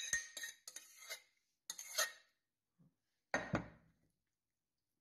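A metal spoon scraping and clinking against a stainless steel bowl as thick béchamel sauce is scraped out, in several short strokes, followed about three and a half seconds in by one heavier metal clatter.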